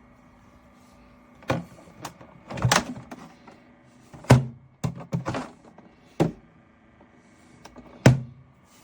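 YASHE thermoelectric mini fridge's cooling fan humming steadily, a noise the owner calls loud, under a string of about eight thunks and clicks as the fridge is handled.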